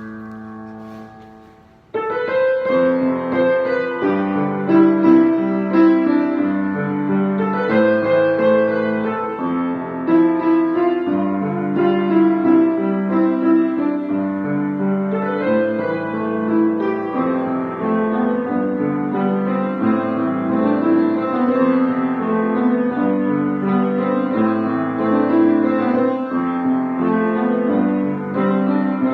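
Piano playing a continuous melody over chords, starting abruptly about two seconds in after a fading note.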